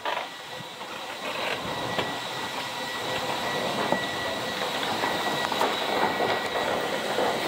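Air-Dock inflatable boat lift inflating: its air blower runs with a steady whine over a crackling hiss of air being forced through the hoses into the flotation bags. The sound grows steadily louder.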